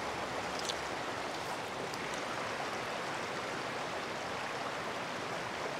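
A river's flowing water, a steady, even rush.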